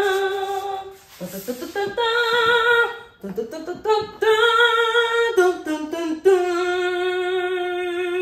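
A woman singing wordless held notes in short phrases, then one long note with a slight vibrato from about six seconds in.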